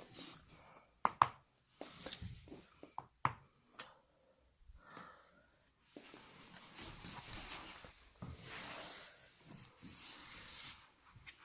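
Chiropractic neck and back adjustment: sharp cracks of the joints, a pair about a second in and more around three to four seconds in. They are followed by several seconds of soft rubbing.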